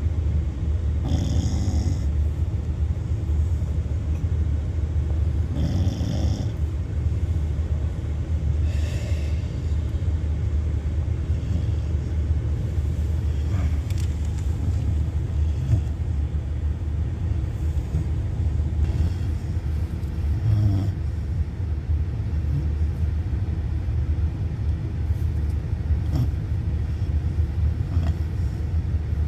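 Labrador puppy snoring in its sleep, a snore every few seconds, over the car's steady low rumble.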